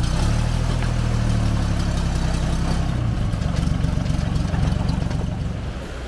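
Old ZiL-164 dump truck's inline-six petrol engine idling with a low, steady note that turns rougher and more uneven about three seconds in.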